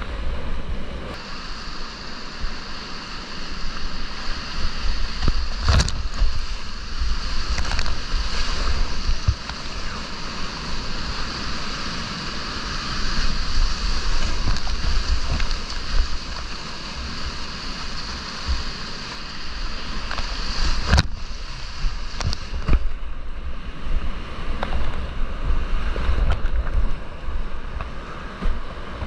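Whitewater rapids of the Snake River at about 7,800 cfs rushing and splashing around a kayak, with waves breaking over the boat and a low rumble of wind and water buffeting the microphone. A couple of sharp knocks cut through the rush.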